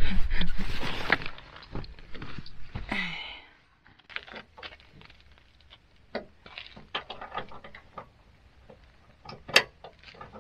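Someone handling and rummaging through gear: a few seconds of rustling and shuffling, then scattered light clicks and taps, with one sharp knock near the end.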